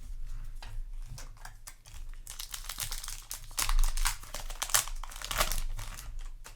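Foil booster-pack wrapper crinkling and crackling as it is handled, louder from about two seconds in.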